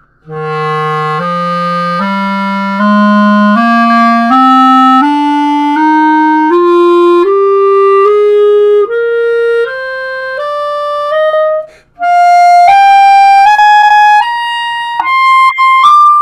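1970s Buffet R13 clarinet with a Van Doren 3.5 blue box reed, played as a slow ascending scale one note at a time. It starts from its lowest notes and climbs through the registers into the high range. There is a brief pause about twelve seconds in.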